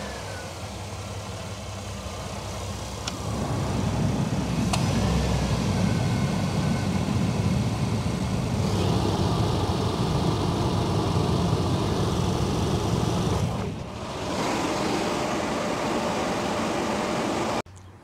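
1997 GMC Safari's 4.3-litre V6 running at idle with the air conditioning on max and the blower on high: a steady engine and fan hum, louder from about four seconds in.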